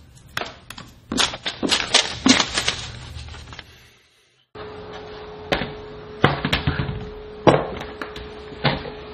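Quick runs of clicks from a computer keyboard's keys being typed on, then, after a moment of silence, a steady hum with a few sharp knocks about a second apart.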